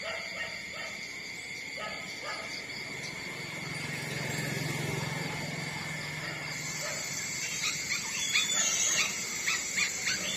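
Newborn puppies suckling at their mother, with a quick run of small smacking clicks and short squeaks in the last few seconds. A steady high whine sits in the background, and a low hum rises for a few seconds in the middle.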